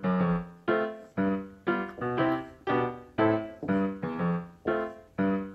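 Background music: a keyboard melody of single notes struck about twice a second, each note dying away before the next.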